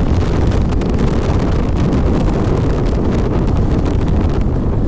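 Wind buffeting the microphone of a moving motorcycle, a loud steady rumble.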